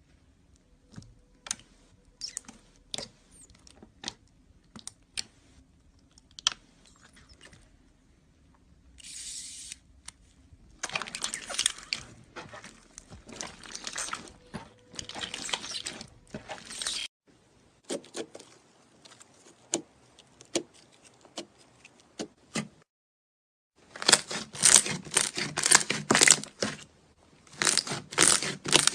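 Crunchy slime being squeezed and pressed by hand, giving crisp clicks and pops. Scattered clicks come first, then runs of dense crackling, the loudest near the end.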